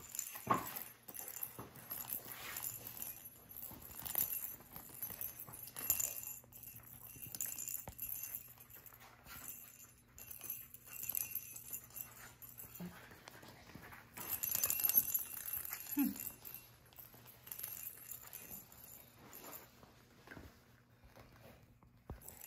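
Jingle bell inside a plastic rattle ball jingling in repeated short bursts as a golden retriever puppy chews and bats it around. Twice, past the middle, the puppy gives a brief low whine.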